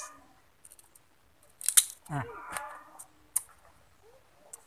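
A small knife cutting pieces off a hard guava, making a few sharp, crisp snicks. The loudest comes a little under two seconds in.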